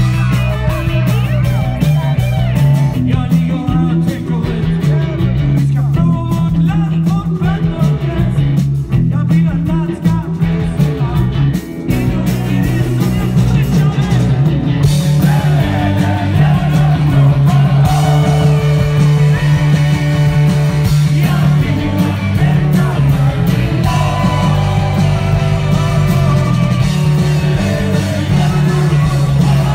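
A live rock band playing loudly, with a singer, electric guitars, bass and drums, recorded from the crowd. The music dips briefly and then gets fuller about halfway through.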